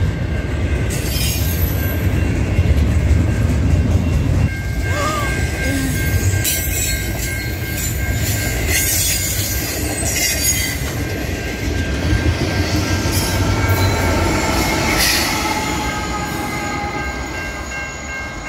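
CN double-stack container freight train passing at close range: a steady low rumble of wheels on rail, with several short high-pitched wheel squeals and screeches along the way.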